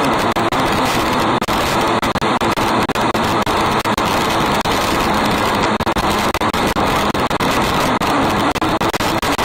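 270 micro sprint race car's engine running hard at racing speed, picked up by a camera mounted on the car: loud and steady, with frequent brief crackles and dropouts.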